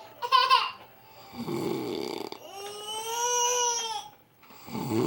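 A man snoring loudly open-mouthed in deep sleep: a rough, rattling snore in the middle and another starting near the end, with a long, steady high-pitched tone between them. A short wavering pitched sound comes right at the start.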